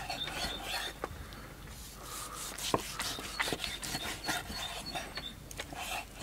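A chef's knife slicing through a grilled tomahawk steak on an end-grain wooden cutting board. The blade makes quiet rubbing strokes through the meat, with several short sharp ticks as it meets the board.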